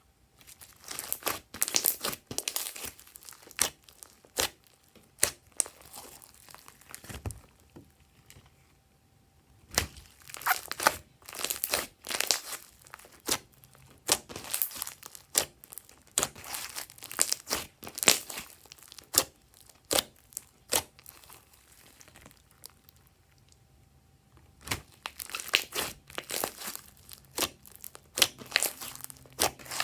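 Glossy slime being squeezed, stretched and pressed by hand, giving wet clicking and crackling pops in irregular flurries with short quieter pauses.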